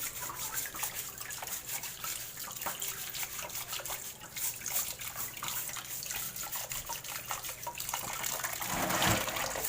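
Water running and splashing, with many small irregular clicks and drips.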